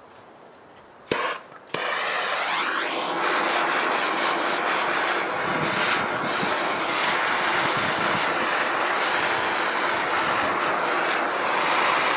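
A hand-held MAP-gas torch lights with two sharp pops about a second in, then its flame runs with a loud, steady hiss.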